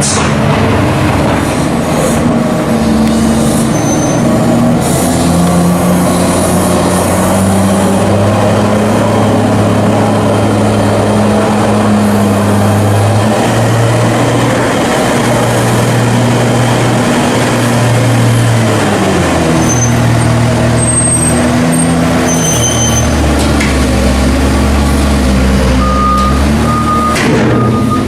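Heavy diesel farm machinery working, its engine note rising and falling with load. A reversing alarm beeps in a steady repeating pattern near the end.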